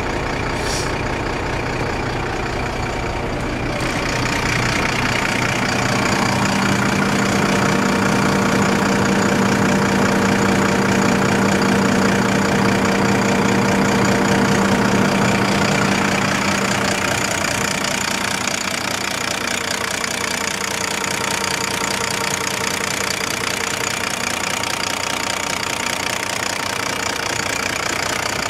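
Kalmar DCD150-12 container forklift's Volvo Penta diesel engine idling at about 600 rpm. About four seconds in it grows louder, with a strong steady hum, then eases back about seventeen seconds in.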